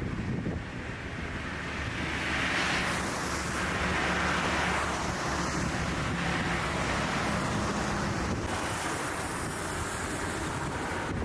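Road traffic noise: engines humming and tyre hiss swelling as vehicles pass, twice in the first half.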